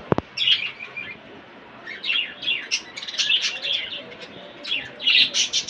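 Flock of small cage birds chirping in quick clusters of short, high, sliding chirps, with a brief click right at the start.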